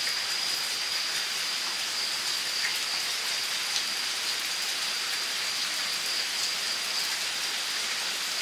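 Steady hiss of rain falling, with a continuous high-pitched insect trill running through it.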